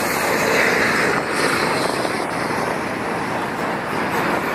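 Steady road traffic noise from passing cars and trucks on a busy street, an even wash of sound with no single distinct event.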